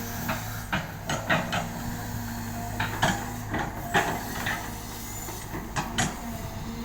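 Caterpillar excavator's diesel engine running steadily, with irregular metallic clanks and knocks, about a dozen, from the machine as it works the soil.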